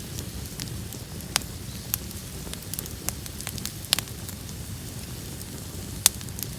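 Open bonfire burning, with a steady low rumble and sharp crackles and pops every second or so; the loudest pops come about four and six seconds in.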